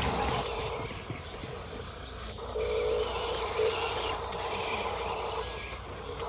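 RC bulldozer running with a steady motor whine that swells and fades, stronger from about halfway in: the strange sound it makes while working.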